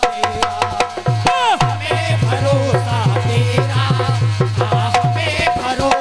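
Instrumental break in Indian devotional kirtan music: a hand drum plays a fast, steady beat of deep strokes under a held harmonium note and a wavering melody line.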